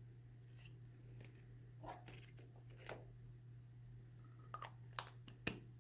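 Faint clicks and rustles from handling paper and a plastic glue stick, a few more of them near the end, over a steady low hum.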